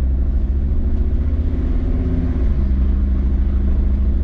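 Jeep Grand Cherokee WJ's 2.7 CRD five-cylinder turbodiesel driving at low revs, heard from inside the cabin as a steady low drone. The engine note shifts slightly about halfway through.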